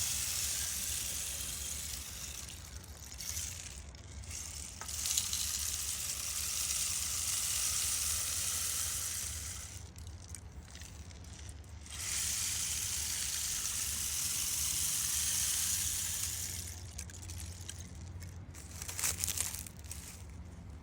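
Rainstick tipped over again and again: a trickling, rushing hiss like falling rain that swells and runs for several seconds at a time, three or four pours with short quieter gaps between them, and a few small rattles near the end.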